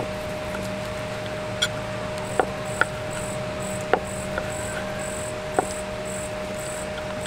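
Kitchen knife slicing fried chicken (karaage), the blade tapping sharply on a wooden cutting board a handful of times. Insects chirp in a high pulse about twice a second, starting about two seconds in.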